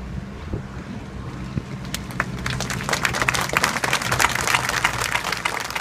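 Two small propeller planes flying over with a steady low drone. About two seconds in, a crowd starts clapping, and the applause grows louder toward the end.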